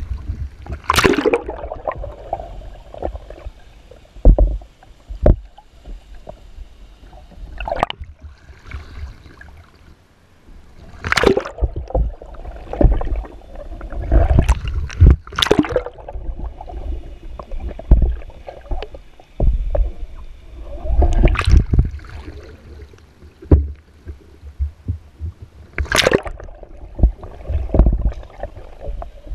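Water sloshing and gurgling with a muffled underwater rumble as a kayaker capsizes and rolls, broken by repeated sharp splashes as the water churns at the surface.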